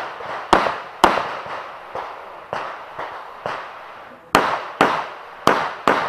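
Handgun shots fired in a practical-shooting course of fire: about nine sharp bangs, each with a short echoing tail. A quick pair opens the stretch, a few more follow singly, and a fast string of four shots about half a second apart comes near the end.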